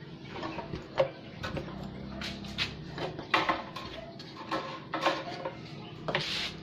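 Irregular clicks, knocks and light clatter of things being handled, with a sharper knock about a second in.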